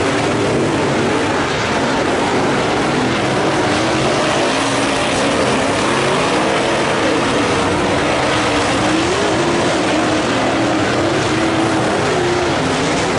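Dirt-track modified race cars racing on the oval, their engines rising and falling in pitch as they power through the turns and down the straights.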